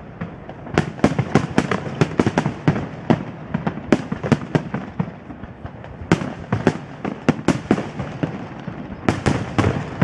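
Aerial fireworks display: rapid volleys of shell bursts, several bangs a second, with short lulls around the middle and shortly before the end.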